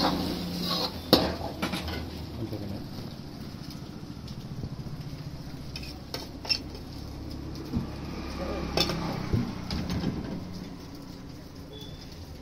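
A steel ladle clanks and scrapes against a steel wok as egg fried rice is stirred, the sharpest clank about a second in. Later come scattered metal clinks as a steel container is handled, over a low frying sizzle.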